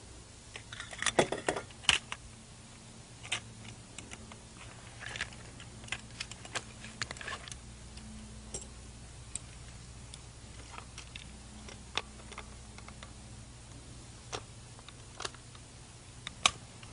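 Irregular metallic clicks, clacks and light knocks of a .223 semi-automatic rifle being taken apart by hand with a long screwdriver as its wooden stock is swapped for a plastic one. There is a quick cluster of louder clacks about a second in and a single sharp click near the end, over a low steady hum.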